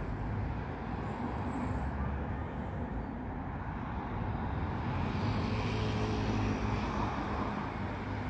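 Steady town traffic ambience: road traffic running in the streets below, a continuous low hum and hiss that grows a little louder past the middle.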